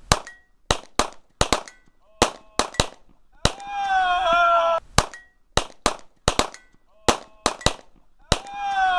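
AR-15 rifle fire: about twenty quick shots in uneven strings, some followed by a short high ping. A loud, drawn-out sound with several pitched tones sliding slightly downward comes between strings, about three and a half seconds in, and again near the end.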